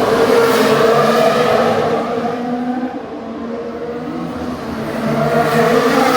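Formula 1 cars' 1.6-litre turbocharged V6 hybrid engines running as the cars go by; the sound fades about halfway through and swells again near the end as more cars approach.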